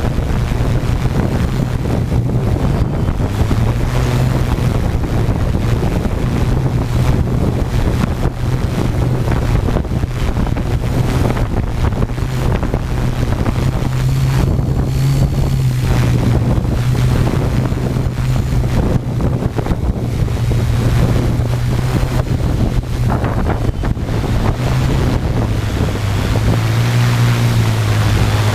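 Tarot 650 quadcopter's motors and propellers humming steadily in flight, the low hum wavering slightly in pitch and dipping near the end, under heavy wind buffeting on the microphone.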